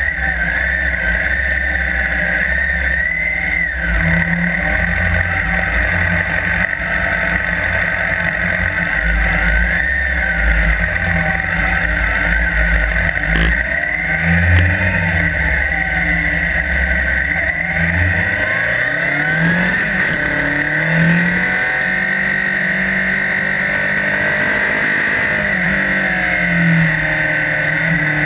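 Police patrol motorcycle engine worked up and down through a riding course, its pitch rising and falling again and again over steady running noise.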